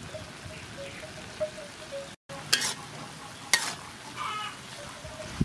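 Beef and bitter gourd sizzling in a hot wok as they are stir-fried. A metal ladle scrapes sharply against the wok twice about halfway through. The sound cuts out for an instant about two seconds in.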